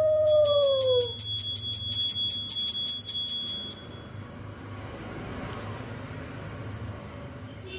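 A brass puja hand bell rung rapidly and continuously, with clear high tones, stopping about four seconds in. At the start, a lower held tone drops in pitch and ends about a second in.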